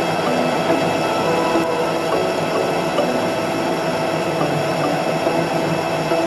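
Metal lathe running steadily while a tool bit cuts a rounded end on the spinning metal workpiece: an even machine drone with a held whine over it and a few faint ticks.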